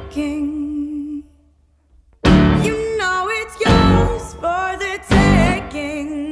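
Background pop song: a singer holding notes with vibrato over guitar and drums. The music drops out briefly about a second and a half in, then comes back at full level.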